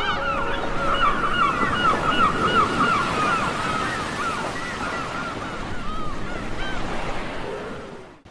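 A dense chorus of short, rising-and-falling animal calls, many a second, over the steady wash of the sea, thinning out and fading away near the end.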